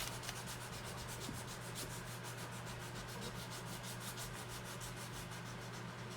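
Rapid, even rubbing or scraping strokes, about eight a second, over a steady low hum.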